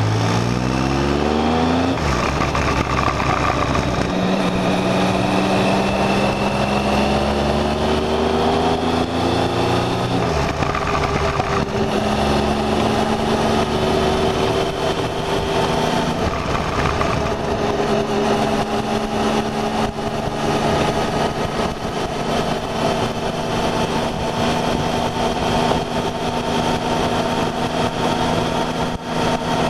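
Motorcycle engine pulling hard up through the gears, its pitch climbing and dropping back at each upshift several times, then running at a steady cruise with small changes in speed, over wind rush.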